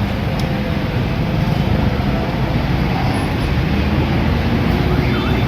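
Road traffic: a steady, loud rumble of engines.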